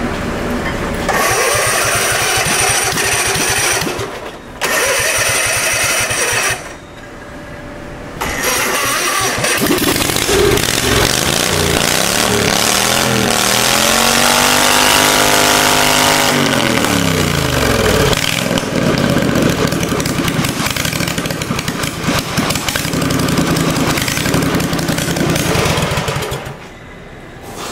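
Kawasaki V-twin lawnmower engine with open straight exhaust stubs, loud, running with the governor removed on its first runs after its clogged carburetor was cleaned. It catches, drops out twice in the first several seconds and picks up again. Then it runs steadily, with one long rev up and back down about midway, and shuts off near the end.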